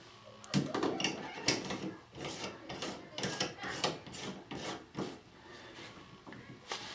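Short scraping and rubbing strokes, about two a second, from parts being worked by hand as a new cartridge is fitted into a Delta MultiChoice shower valve body. The strokes stop about five seconds in.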